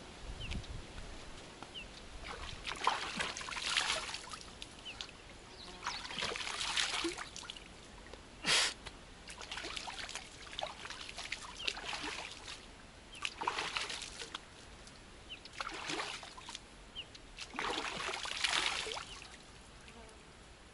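Stream water splashing and sloshing as a man scoops it by hand to wash his feet and legs, in a run of separate splashes every second or two, with one sharper slap about eight and a half seconds in.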